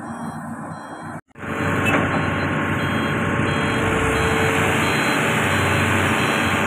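Heavy diesel machinery engine running steadily and loud, coming in abruptly after a brief dropout about a second in; the first second is quieter.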